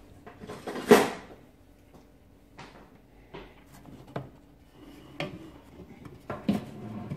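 Scattered knocks and clatter of brewing kit as crushed malt is mashed into an electric boiler, the loudest knock about a second in.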